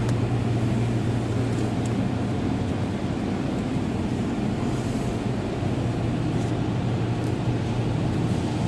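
Touchless conveyor car wash running, heard from inside the car's cabin: a steady low hum with an even hiss of spray as tri-foam soap is applied over the car, and a few faint ticks.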